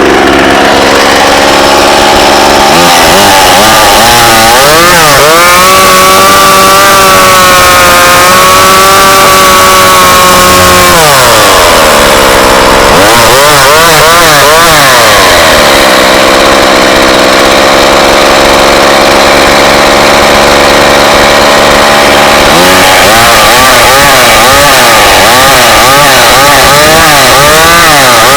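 McCulloch Mac 2.0 cubic-inch mini chainsaw's two-stroke engine running loud. It idles, is revved up and held for several seconds with its pitch wavering, drops back to idle, is revved again briefly, idles, then revs up once more near the end.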